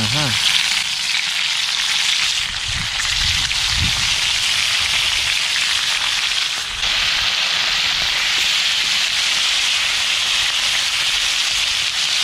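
Whole fish sizzling as they fry in hot oil in a pan, a steady dense hiss.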